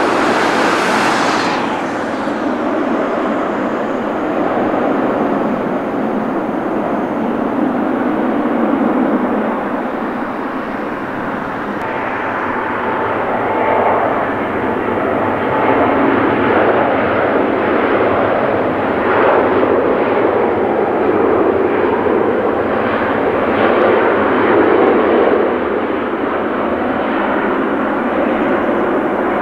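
Wide-body jet airliner's engines, a loud, steady rumble that swells and ebbs slowly, with a high hiss fading away over the first two seconds.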